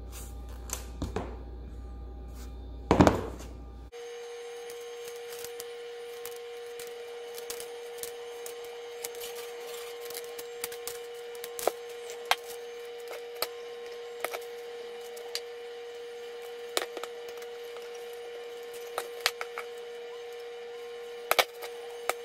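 Scattered clicks and light taps of braided picture-hanging wire being handled and wrapped around screws set in a wooden dowel, with one louder knock about three seconds in. A steady faint tone starts abruptly about four seconds in.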